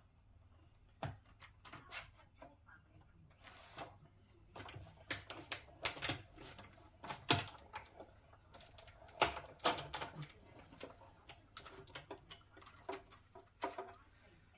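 Irregular sharp clicks and knocks of plastic cutting plates and metal dies being handled during die-cutting.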